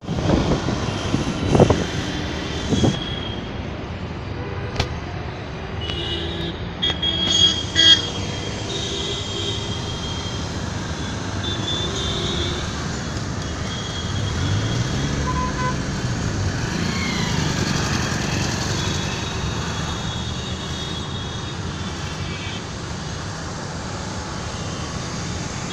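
Busy city road traffic heard from inside a moving car: a steady rumble of engines and tyres, with vehicle horns honking several times, most thickly about seven to eight seconds in.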